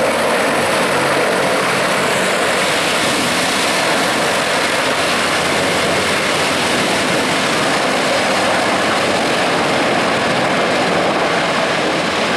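Sikorsky CH-53 heavy-lift helicopter flying low just after lift-off: a loud, steady rotor and turbine engine noise.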